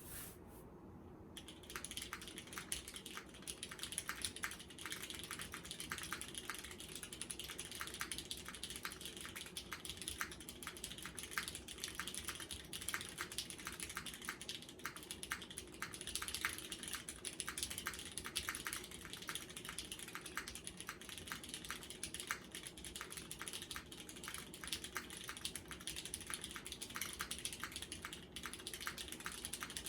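Mechanical keyboard typing, fast and continuous from about a second and a half in: a Geon Works F1-8X with an aluminum plate, lubed vintage Cherry MX Black linear switches and GMK keycaps. Recorded through an iPhone microphone.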